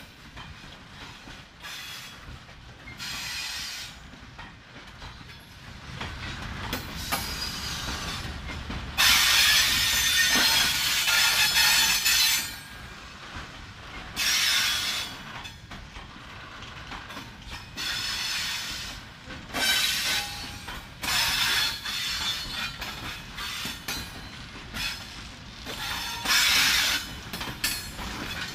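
Covered goods wagons of a slow-moving train rolling past, wheels clanking and screeching on and off over the rails above a low rumble. The loudest screeching comes about a third of the way in.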